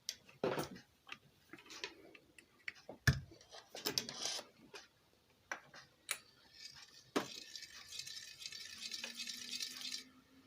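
Scattered clicks and knocks of hands working on a ceiling fan, with a hiss between about seven and ten seconds in. Near the end the ceiling fan's motor starts up, its hum rising slowly in pitch as it speeds up.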